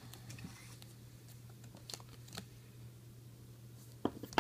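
Trading cards being handled and flipped through: faint scattered clicks and light taps of card stock, with two sharper clicks near the end, over a low steady hum.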